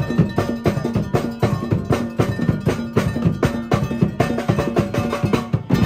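Live percussion band playing a fast, driving soca rhythm on congas, rope-laced drums and struck metal, with rapid even strokes and a held low note underneath.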